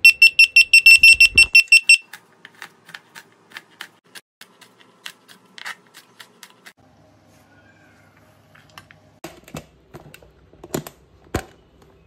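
A rapid series of high electronic beeps, about seven a second, for the first two seconds. Then a knife chops red onion on a plastic cutting board in steady light strokes, about two to three a second, and a few louder knocks of handling near the end.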